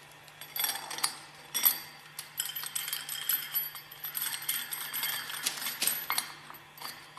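Small metal parts clinking and tapping in quick irregular clicks as a perforated steel plate and its hex-head screw are fitted by hand onto the hub of a separator's centrifugal clutch, over a faint steady low hum.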